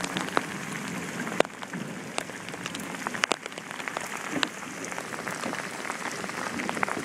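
Heavy rain pouring down on a lake and a canoe, a steady hiss with scattered sharp taps of drops striking close by.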